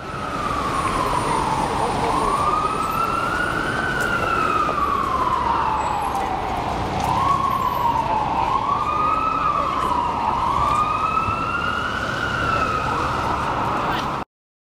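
Emergency vehicle siren wailing, its pitch sliding slowly up and down with a few quicker rises in the middle, over the steady hiss of city street traffic. It cuts off suddenly near the end.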